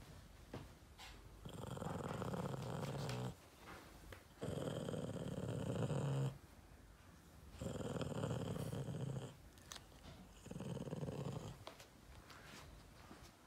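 Boston terrier growling: four long, low growls of one to two seconds each, with short pauses between them.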